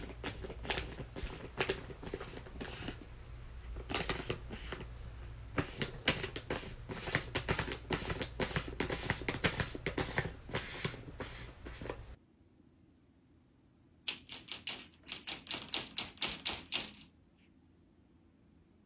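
Rapid, irregular clicking and tapping, like typing. It runs for about twelve seconds, stops, and a shorter burst of clicks follows a couple of seconds later.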